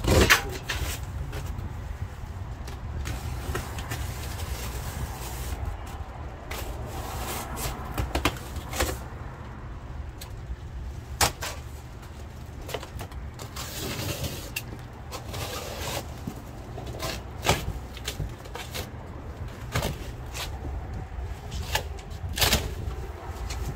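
Boxed appliances and cardboard being handled and shifted on a liquidation pallet: scattered knocks and thumps at irregular times, the loudest right at the start, over a steady low rumble.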